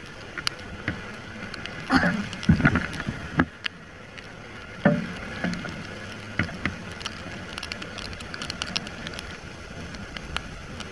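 Heavy typhoon rain and tyre hiss on a flooded, wet road from a moving motorcycle, with raindrops ticking sharply against the camera. Louder rushes of spray or wind come about two to three seconds in and again near five seconds.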